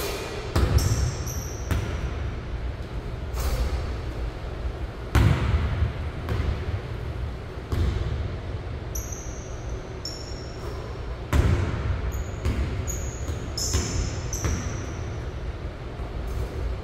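Basketball bouncing on a hardwood gym floor: a dozen or so sharp bounces and knocks that ring out in the large hall, with short high sneaker squeaks coming thick in the second half. A steady low hum runs underneath.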